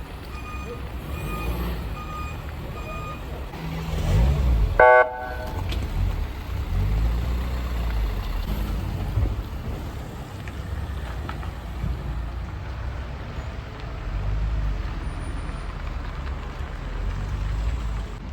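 Vehicle and traffic noise with a steady low rumble. A beeper repeats its tone in the first three seconds, and a short, loud vehicle horn toot sounds about five seconds in.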